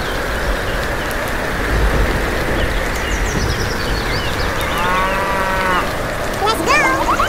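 Farm-and-storm sound effects: a steady hiss of rain, with a few bird chirps, then a cow mooing once for about a second, about five seconds in. Near the end comes a wavering animal call.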